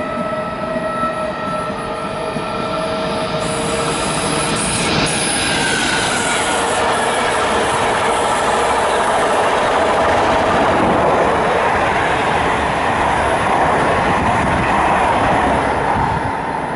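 An ÖBB Taurus electric locomotive hauling a train of passenger coaches passes at speed. Its wheels make a steady rush with clickety-clack on the rails, growing louder as the coaches go by close and easing off near the end. A few thin whining tones sound in the first seconds.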